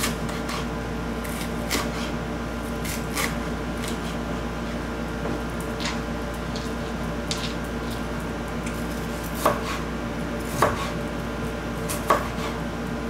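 Chef's knife chopping a green bell pepper on a white plastic cutting board: irregular knocks of the blade against the board, one every second or two, the firmest strokes in the last few seconds. A steady low hum runs underneath.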